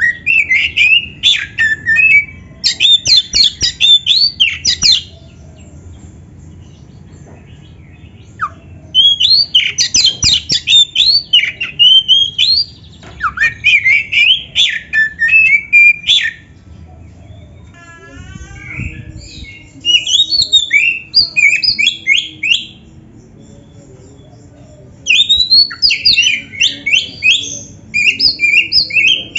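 Oriental magpie-robin (kacer) singing a loud, varied song of rapid, sweeping high notes filled with mimicked phrases. It comes in four bursts of several seconds each, with pauses of a few seconds between them.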